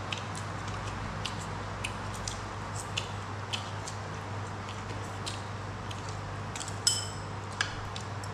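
Eating noodles with chopsticks: scattered short clicks and clinks of chopsticks on a plate, with mouth sounds of eating noodles, and two sharper clicks near the end. A steady low hum runs underneath.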